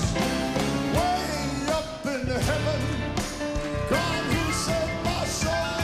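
Live gospel song: a man sings the lead into a microphone over a full band accompaniment.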